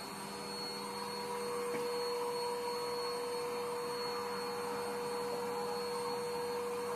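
Pet grooming blow dryer running steadily, a constant whine over the rush of air from its hose. The nozzle attachment is taken off to lower the air pressure for drying around the puppy's face.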